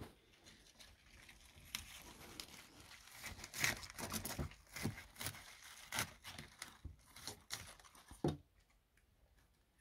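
Crisp leaves and stems of a hydroponic Danstar crisphead lettuce crackling and snapping as a kitchen knife cuts the head free at its base and the hand pulls it loose: an irregular run of sharp crunches and crinkles that stops near the end. The crackle is the sign of fresh, crisp leaves.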